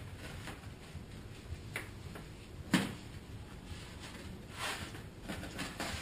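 Handling noises from putting aluminum sealing tape over the kiln's insulation edges: scattered rustling and crinkling, with one sharp knock about three seconds in.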